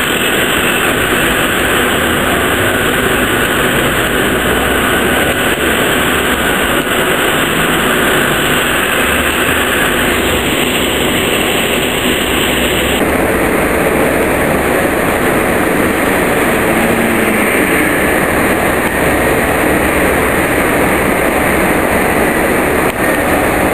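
Steady, loud street traffic: cars, a coach and other vehicles driving past on a busy road, with a tram in the traffic.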